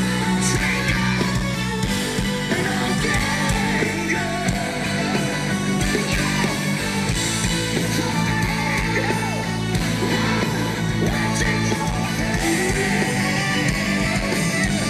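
Live heavy metal band playing, with sung vocals over electric guitars, drums and keyboards, heard from among the audience.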